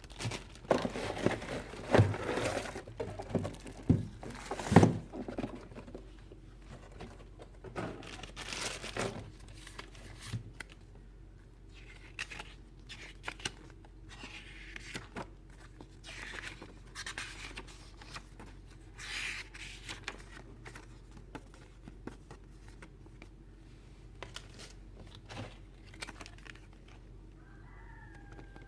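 Toy packaging being handled and opened: irregular crinkling, rustling and tearing with sharp clicks. It is busiest and loudest in the first ten seconds, then sparser.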